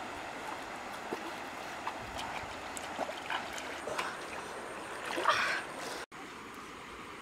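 Shallow river running over rocks, with light splashes and then a louder sloshing splash about five seconds in as a pan is dipped into the water to scoop it up. The running-water sound cuts off about six seconds in.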